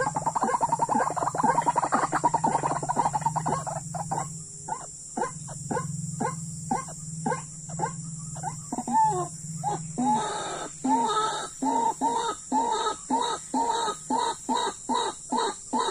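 White-breasted waterhen (ruak-ruak) calling: a fast chattering run that slows into a steady series of harsh, repeated notes at about two a second, louder in the second half.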